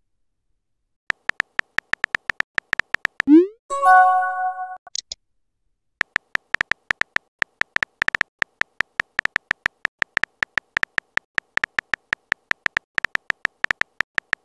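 Simulated phone-keyboard typing sounds from a texting app: rapid, sharp tapping clicks. About three seconds in they give way to a short rising whoosh and a brief chime as a message is sent. The tapping then resumes and runs steadily on.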